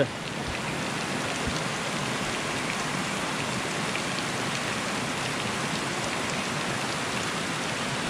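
Steady splashing of running water: spring water pouring from a pipe into a tank, with a creek flowing alongside.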